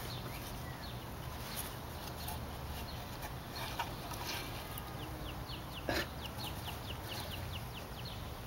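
A bird calling, a quick run of about a dozen short falling high notes a few seconds in, over steady outdoor background noise. A single sharp knock comes in the middle of the run.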